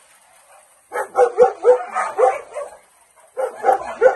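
A dog barking in a quick run of sharp barks starting about a second in, then a shorter run of three more near the end.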